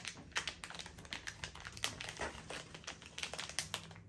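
Small package crinkling and rustling in the hands as a watch band is pulled out of it, with many quick irregular crackles.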